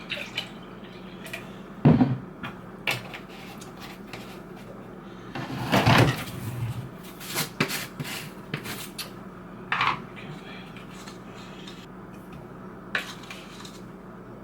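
Kitchen dishes and utensils being handled: scattered knocks and clatter of containers, with a sharp knock about two seconds in, a longer clatter around six seconds, and a short ringing clink near ten seconds.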